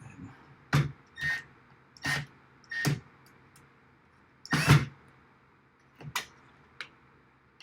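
A series of about seven short knocks and clatters from handling work parts and tools, some with a brief ringing whir, the loudest about four and a half seconds in.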